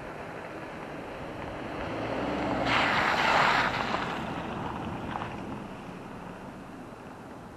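A 2020 Subaru Crosstrek, its 2.0-litre flat-four engine and all-terrain tyres on the dirt road, driving past close by. The sound swells as it approaches, is loudest about three seconds in as it passes, then fades as it drives away. Light wind noise on the microphone throughout.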